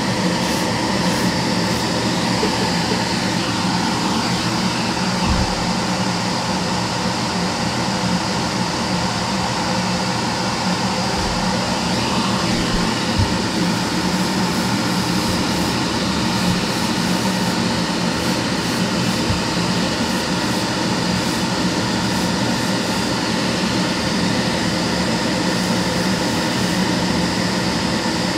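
Bench-top spray booth extractor fan running steadily: a constant rush of air with a low motor hum.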